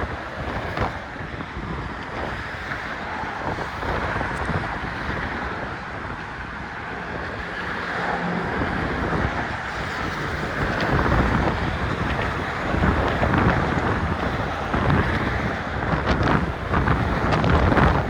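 Gusty wind buffeting a phone microphone that has a sock over it, a dense low rumble and rush that grows louder in gusts during the second half.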